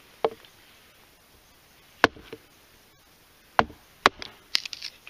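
A hatchet chopping into green western red cedar, hacking away the sapwood. There are sharp single strikes at irregular intervals, followed by a quick run of several chops near the end.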